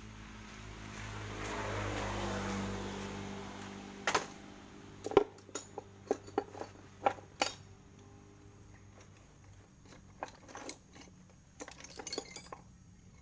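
A rush of noise swells and fades over the first few seconds. Then comes a string of sharp metallic clinks and knocks, like tools and small metal parts being handled.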